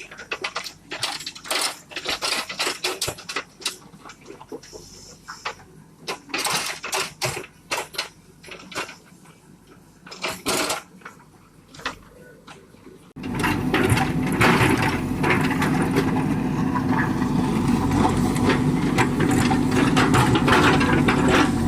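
Irregular clattering knocks for about the first thirteen seconds, then a JCB 3DX backhoe loader's diesel engine comes in suddenly and runs loud and steady.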